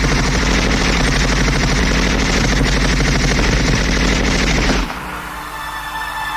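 Machine-gun fire sound effect played over a concert PA: a fast, unbroken rattle of shots that cuts off suddenly about five seconds in. A held synth chord follows.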